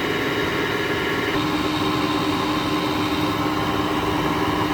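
2009 GE 10,000 BTU window air conditioner running on low cool: a steady drone of fan and compressor hum, whose tone changes about a second and a half in.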